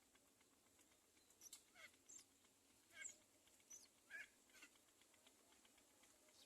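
Myna calls: a faint run of about seven short calls, each falling in pitch, spread between about one and a half and five seconds in.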